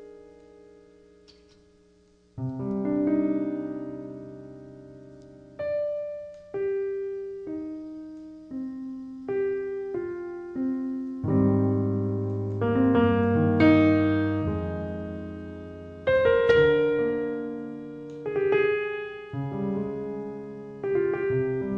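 Background piano music: a slow melody of single notes over soft held chords, each note fading after it is struck.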